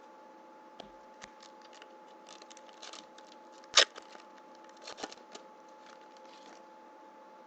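Trading cards handled and flipped through by hand: scattered rustles and light card-on-card clicks, with one sharp snap about four seconds in and a few more a second later. A faint steady hum runs underneath.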